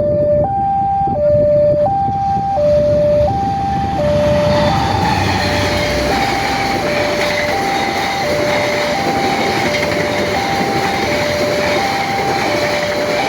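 Railway level-crossing warning siren alternating between two tones, each held about three quarters of a second. From about four seconds in, the rumble and rail noise of a passing train build up under it.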